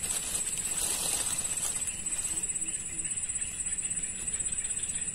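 Steady high-pitched buzzing of insects, pulsing rapidly, over a quiet swamp.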